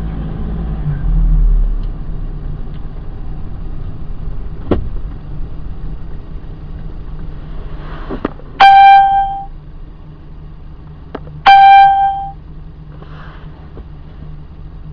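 Steady low hum inside a car, with a sharp knock. Later, twice about three seconds apart, a click is followed by a loud, steady beep or horn-like tone lasting about a second.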